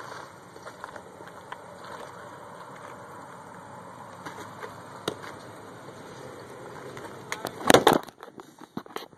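Steady outdoor background noise on the microphone with a few faint clicks, then a loud rustling knock about three-quarters of the way in, as the camera is jostled.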